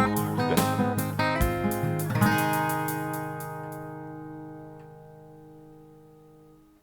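Closing music on guitar, strummed, ending on a final chord that rings out and fades away over the last few seconds.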